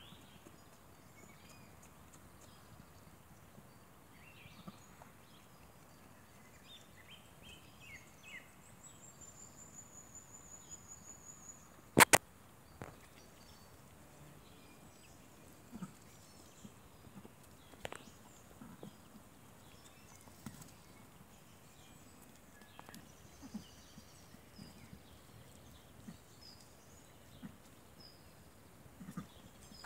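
Quiet outdoor ambience with faint bird chirps and a short high trill. About twelve seconds in comes a sharp double knock, the loudest sound, and a few softer clicks and knocks follow.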